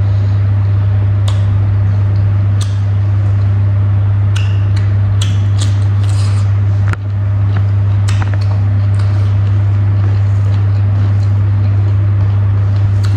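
A steady, loud low hum, with scattered short clicks and smacks of eating close to the microphone: chewing and fingers working rice and pork on a plate.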